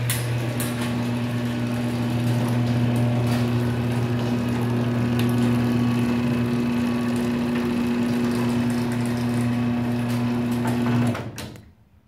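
Chain-drive garage door opener running: a steady electric motor hum with light clicking from the chain and trolley on the rail, stopping near the end.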